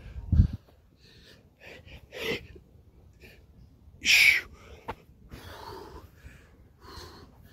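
A man breathing hard from exertion during burpees, with sharp forceful exhales, the loudest about four seconds in. A dull thud sounds just after the start.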